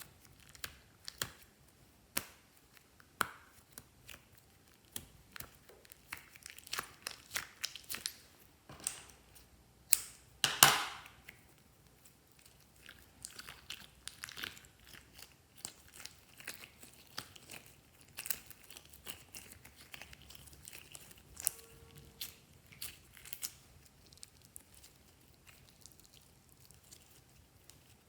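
Slime being squished, stretched and folded by hand, giving irregular sticky clicks and pops, with one louder, longer pop about ten seconds in.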